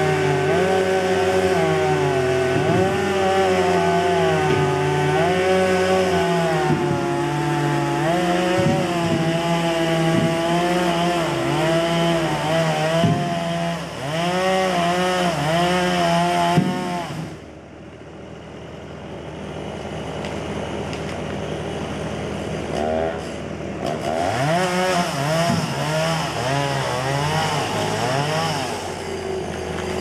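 Gas chainsaw cutting into a standing tree trunk, the engine pitch wavering up and down as the chain bites into the wood. A little past halfway the saw goes suddenly quieter, then builds back up and cuts on.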